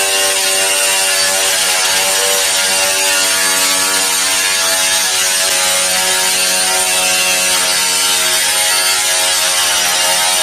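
A small motor running steadily with a mechanical buzz.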